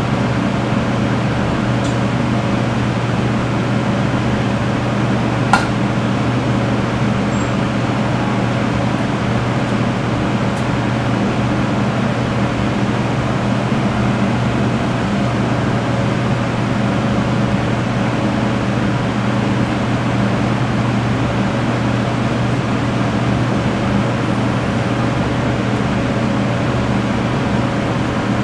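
Steady hum and rushing air of commercial kitchen fans, with one sharp click about five and a half seconds in.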